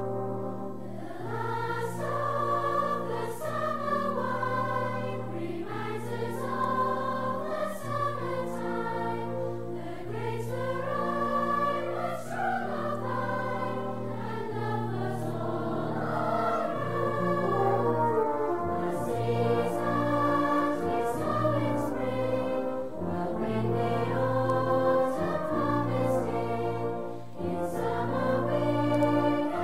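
Background music: a choir singing slow phrases over sustained low notes.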